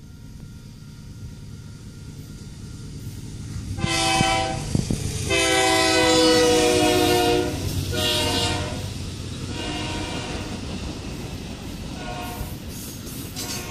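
Union Pacific diesel freight train led by locomotive UP 9714 passing close by. Its air horn sounds in several blasts starting about four seconds in, the longest about two seconds, over the low rumble of the locomotives. Then the freight cars roll past on the rails.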